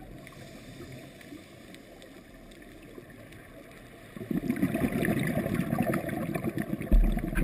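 Scuba regulator exhaust bubbles heard underwater through a camera housing: a low hiss at first, then from about four seconds in a long, muffled rush of exhaled bubbles, with a dull knock near the end.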